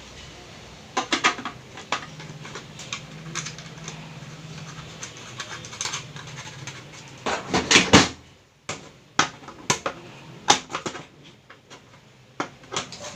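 Scattered clicks, knocks and scraping of hard plastic parts being handled as a speed switch is fitted into a mixer grinder's base, with the loudest clatter about seven to eight seconds in.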